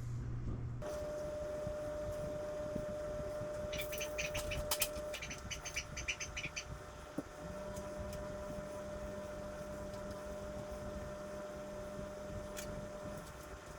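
A small bird chirping rapidly for about two and a half seconds, over a steady faint hum.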